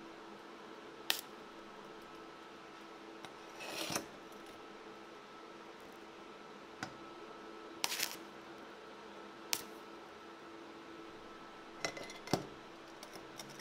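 Sharp metallic clicks and knocks from a homemade corner clamp and square steel tubing being handled, the clamp's toggle levers worked and the tube set against it, with a short scrape about four seconds in. A steady low hum runs underneath.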